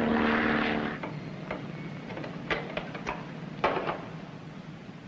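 Propeller aircraft engine droning at a steady pitch, cut off abruptly about a second in. A quieter stretch with a handful of sharp knocks and clunks follows, the loudest a little past the middle.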